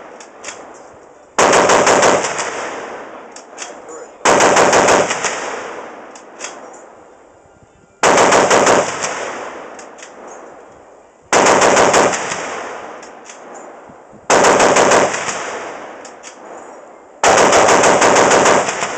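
.50-calibre machine gun firing armor-piercing incendiary tracer ammunition in six short bursts, each under a second long, about every three to four seconds. Each burst is followed by a long fading echo, with a few faint cracks in the gaps.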